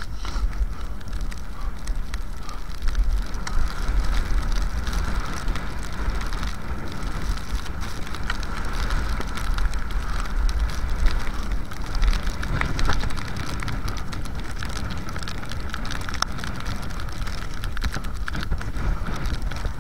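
Fischer classic cross-country skis hissing and scraping as they glide along tracks in snow, with scattered clicks from pole plants, over a steady low rumble of wind on the microphone.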